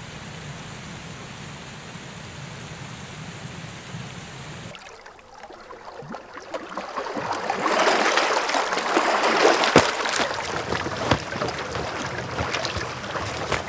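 Steady rush of a distant waterfall that cuts off suddenly about five seconds in. Then small waves lapping and splashing among rocks at a lake's edge, building louder, with many small sharp splashes.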